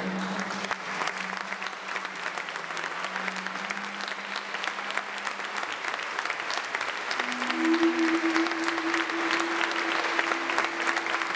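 Audience applauding, a dense clatter of clapping that swells about eight seconds in. Underneath, background music holds a few long low notes, the pitch stepping up partway through.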